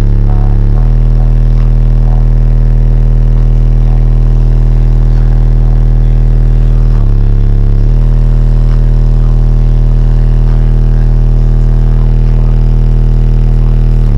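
Two 18-inch PSI Platform 3 subwoofers in a walled Scion tC playing very loud, deep held bass notes. The note changes briefly at the start and again about seven seconds in.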